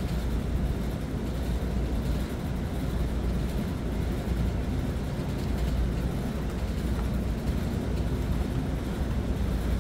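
A steady low rumble of background machinery or traffic noise, with a couple of faint light clicks.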